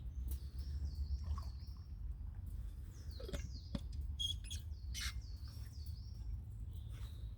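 Birds singing, a series of short repeated chirping phrases, over a low steady rumble, with a few sharp clicks about three and five seconds in.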